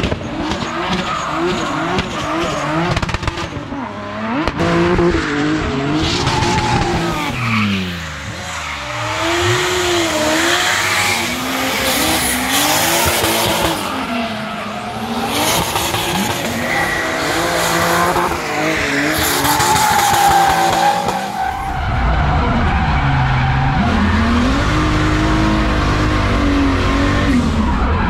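BMW E46 drift car engine revving hard, its pitch repeatedly climbing and dropping through the slides, with tyres squealing and skidding on tarmac. After about three-quarters of the way in, the engine is heard from inside the cabin as a deeper, steadier drone.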